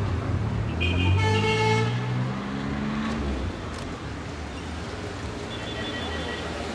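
Diesel locomotive of the Nilgiri Mountain Railway sounding its horn for about a second, starting just under a second in, over the low rumble of its engine, whose note rises for a few seconds as it approaches.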